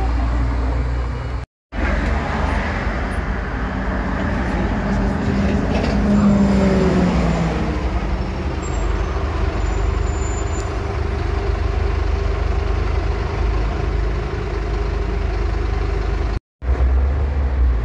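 Diesel engine of a Scania city bus idling steadily up close at a stop, with a falling engine note about six seconds in.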